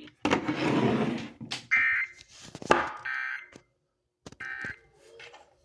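Emergency Alert System end-of-message signal on a weather radio broadcast: three short warbling data bursts about a second apart, closing the severe thunderstorm warning. Bursts of noisy hiss and a sharp click come between them.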